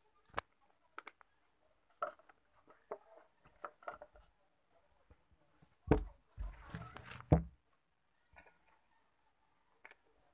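Handling noise from a plastic lid and the piece fitted into it being worked and tightened by hand: scattered small clicks and taps, then a louder knock about six seconds in, about a second of scraping and rubbing, and another knock.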